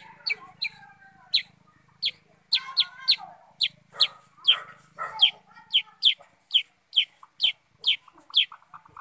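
Caged kutilang sutra, a bulbul, calling over and over in sharp downward-sweeping notes, about two a second, with lower chattering notes mixed in during the first half.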